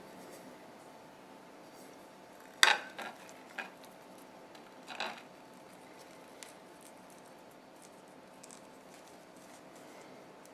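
A few short knocks and clicks as a white plastic plate and small clay fruit pieces are handled on a tile floor, the loudest about two and a half seconds in and two softer ones after it, then only faint ticks.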